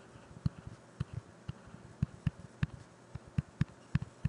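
Stylus tapping and knocking on a writing tablet during handwriting: a string of soft, irregular clicks, about three a second.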